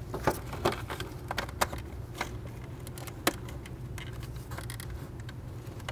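Scattered plastic clicks and taps as a cowl-area cable cover in a car's engine bay is pressed and clipped back into place, about half a dozen sharp clicks with the clearest about three seconds in. A steady low hum runs underneath.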